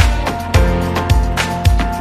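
Background music with a steady beat of about two strong low hits a second under held instrumental tones.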